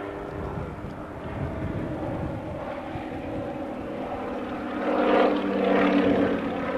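Antonov An-2 biplane's nine-cylinder radial engine and propeller droning in flight, growing louder as it passes overhead about five seconds in.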